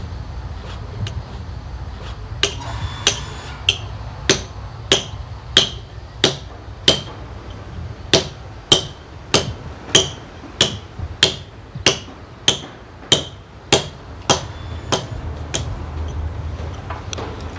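Hand hammer striking a steel chisel into stone in a steady rhythm, about one and a half blows a second. Each blow has a short metallic ring. The blows begin a couple of seconds in and grow softer near the end.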